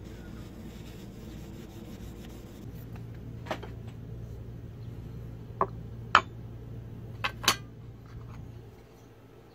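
A cloth rubbing over the wooden handle of a small axe, wiping it down, over a low steady hum that stops about eight and a half seconds in. A few sharp clinks cut through, the loudest about six seconds in.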